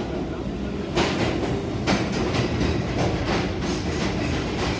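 New York City subway train pulling into the station alongside the platform, its wheels clacking over the rail joints in quick succession, loud from about a second in, over a steady rumble.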